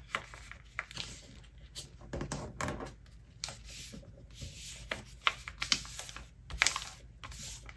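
A sheet of printer paper being folded into a paper airplane by hand: irregular crackles and rustles as the layers are pressed together and fingers run along the creases.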